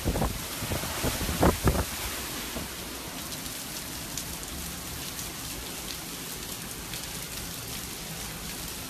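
Heavy hurricane rain pouring down in a steady hiss, with a few loud low thumps in the first two seconds.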